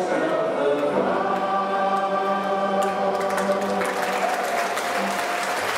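Voices singing together, holding long notes at the close of a song, while audience applause starts about three seconds in and builds toward the end.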